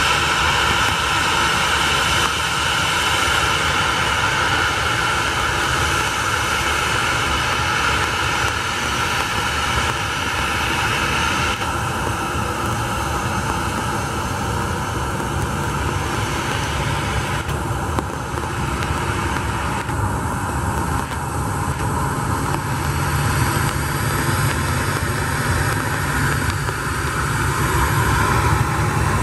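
Boeing 737-700's CFM56-7B turbofan engines running at low taxi power: a steady jet whine over a low rumble. The high whine drops away about twelve seconds in, and the low rumble swells near the end as the airliner swings round on the runway.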